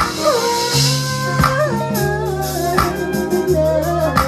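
A band playing a slow song: a singing voice over held bass notes, with a drum hit about every second and a half.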